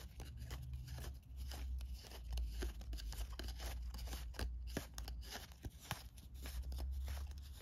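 Small cardboard game cards being pushed one at a time from one hand to the other, making many quick, irregular clicks and light rustles as card slides against card.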